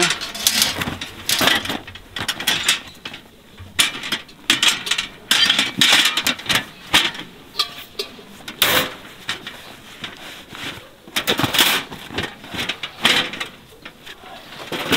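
Snow Peak folding steel fire pit clanking and rattling as it is folded and pushed into its canvas carry bag, with the bag's fabric rustling. The knocks are irregular, and the loudest come about nine seconds in and again around eleven to twelve seconds.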